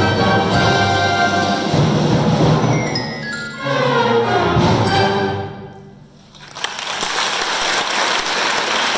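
High school woodwind ensemble playing the closing bars of a piece: held chords, a falling run of notes, and a final note that dies away about six seconds in. The audience then breaks into applause.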